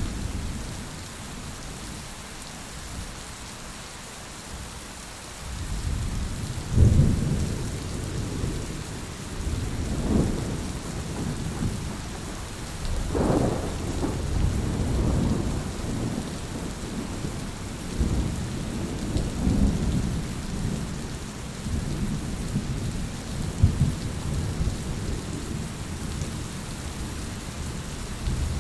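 Steady rain falling, with thunder rumbling low and rolling again and again from about five seconds in; the loudest peak comes about seven seconds in.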